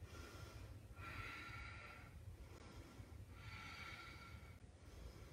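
Faint, slow breathing of a person holding a yoga balance pose: two long breaths, about a second each and two and a half seconds apart, over a low steady room hum.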